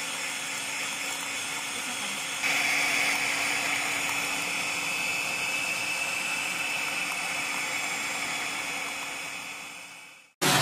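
Electric mixer whirring steadily as it whips dalgona coffee into a thick, pale foam. It gets louder about two seconds in and fades out near the end.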